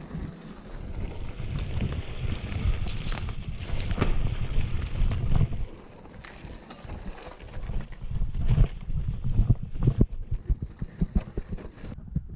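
Mountain bike riding over rough ground: wind buffeting the action-camera microphone over a low rumble of tyres and frequent knocks and rattles from the bike, with stronger hissing gusts a few seconds in.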